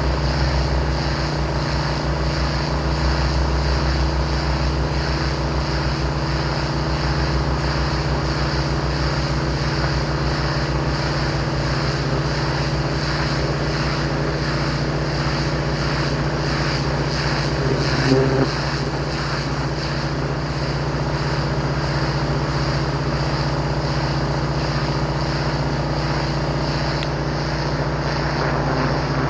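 Pressure washer engine running steadily at working speed, a constant drone with the hiss of the spray, with a brief louder burst about eighteen seconds in.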